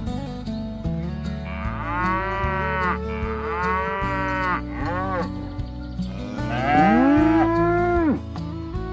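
Cattle mooing, several calls in turn; the loudest and longest comes near the end, rising in pitch before cutting off. Background music plays underneath.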